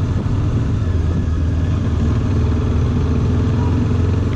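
Bajaj Dominar 400's single-cylinder engine running steadily under way, heard from the riding motorcycle with a constant low rumble.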